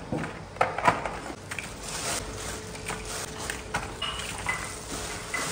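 Scattered knocks, clicks and rustles of things being handled on a kitchen counter, over a faint steady hum.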